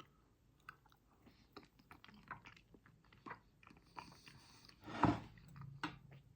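A person chewing a mouthful of beans on toast, with small irregular crunches of the toast, and one louder short noise about five seconds in.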